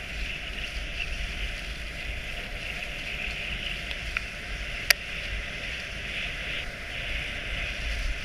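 Dog sled running over a packed-snow trail behind a team of dogs: a steady hiss of the runners on snow over a low rumble, with a single sharp click about five seconds in.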